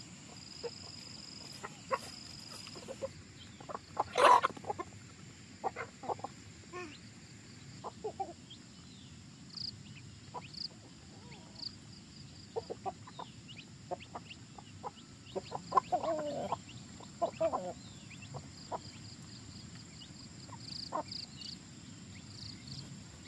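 A flock of hens and roosters clucking and calling while they peck at scattered grain, in many short, irregular sounds. The loudest is a sharp sound about four seconds in, and a run of calls comes around sixteen to seventeen seconds.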